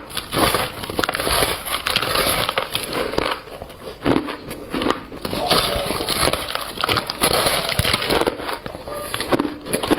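Close-miked biting and chewing of shaved ice, repeated squeaky, crunchy crackling bites.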